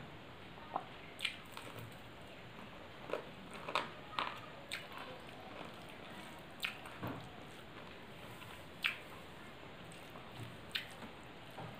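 Close-up eating sounds of rice and fish curry eaten by hand: about a dozen short, wet mouth smacks and clicks at irregular intervals.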